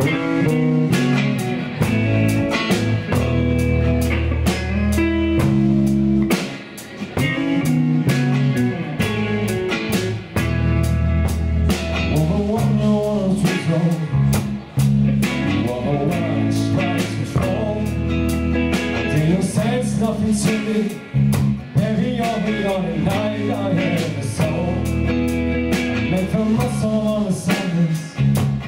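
Live rock band playing: two electric guitars, electric bass and drum kit, with a man singing the lead vocal over them.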